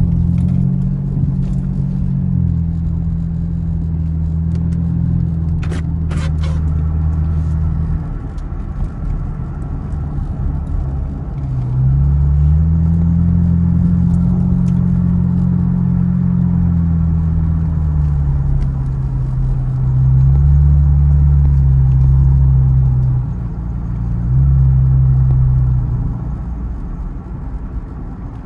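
Chevrolet Camaro engine running low and deep on the move. Its pitch rises and falls as the car accelerates and backs off, with a long swell about twelve to seventeen seconds in and shorter ones later. There are a couple of brief knocks about six seconds in.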